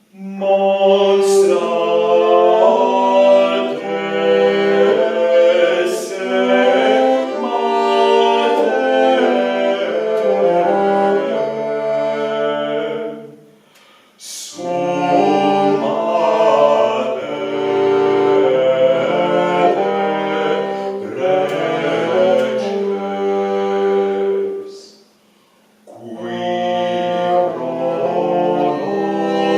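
An early-music trio playing live: several pitched parts holding sustained notes together in phrases. The music breaks off briefly twice, about halfway through and near the end, and starts again each time.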